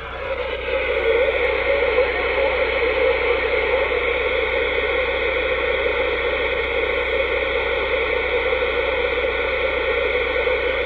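Dynascan 10M66 10-metre radio receiving on upper sideband, its speaker giving out steady band-noise hiss with a few faint steady whistles in it. The hiss comes up in level within the first second.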